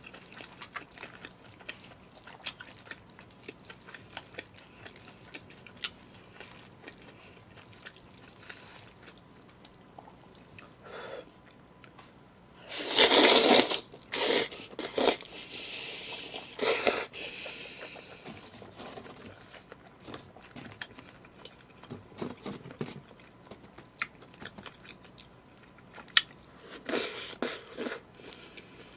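A person eating jajangmyeon (black-bean noodles) close to the microphone. Quiet chewing and small clicks run through, then loud slurping of the noodles about halfway through, in a few pulls over some four seconds. Another short run of loud eating noises comes near the end.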